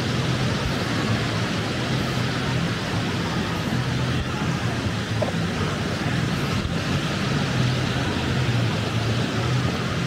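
Ocean surf washing onto a sandy beach, a steady rush of waves, with a low engine hum running underneath.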